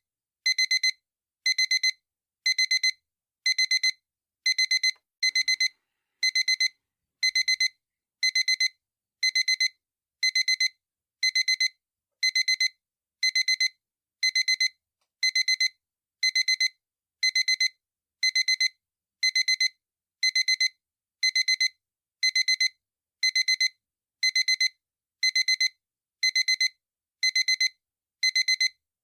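Digital alarm clock beeping: short high-pitched double beeps, about one pair a second, repeating evenly.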